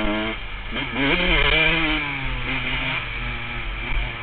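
Honda CR125 two-stroke single-cylinder engine revving under riding, heard from on the bike: the pitch climbs sharply about a second in, then falls away as the throttle eases and runs steadier.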